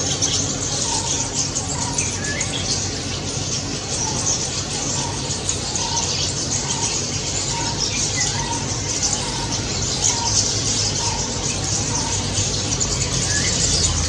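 Rosy starlings chirping: short calls repeating about once a second, with a few brief higher notes, over a steady hiss and a low rumble of background noise.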